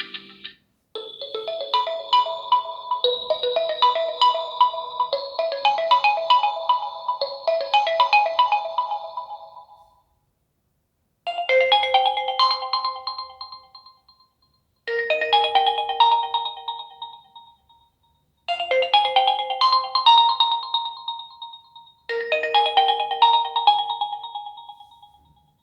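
Realme GT5 Pro phone ringtones playing. A melody runs for about nine seconds, then after a short silence a phrase of about three seconds plays four times, each repeat separated by a brief gap.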